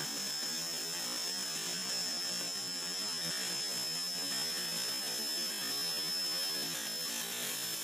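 Lit fuse of a mercun bola ball firecracker burning down: a steady hiss with a thin, constant high whine through it.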